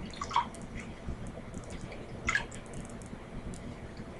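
Wet squelching of plastic-gloved hands pulling fat off a raw chicken, with two short louder squelches, about a third of a second and two seconds in, and faint drips of water into a basin.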